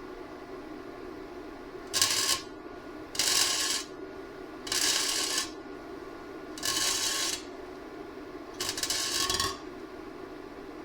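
MIG welder laying five short stitch welds, each a crackling hiss lasting under a second, over a steady low hum. The welder is running way too much heat for the thin exhaust metal.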